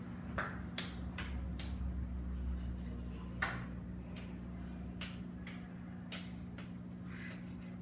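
A series of short, sharp snapping clicks at uneven spacing: four about half a second apart near the start, then about eight more spread out over the rest, over a steady low hum.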